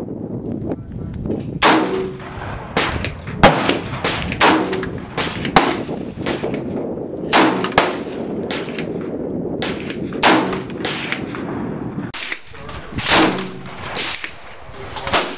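An AR-15-style rifle firing more than a dozen shots at an irregular pace, each a sharp crack, some louder than others.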